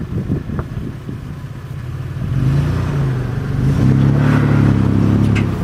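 Toyota 4Runner's engine pulling under load as it climbs a rutted dirt slope, getting louder about two seconds in and then holding a steady pitch. Wind buffets the microphone at first.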